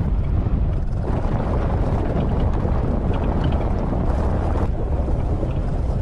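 SsangYong Rexton SUV driving along a rough gravel forest track: a steady low rumble of engine and tyres on gravel, with wind buffeting the microphone.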